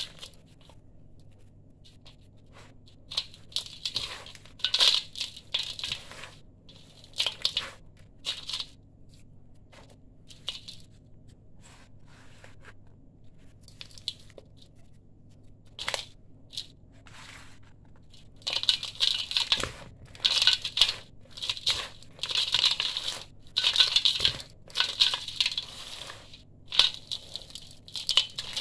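Dry sand-cement mix crumbled by hand and sifted through the fingers into a stainless steel bowl: gritty crunching and grains trickling onto the metal in irregular handfuls. It is sparse through the middle and comes in quick, dense handfuls over the last ten seconds.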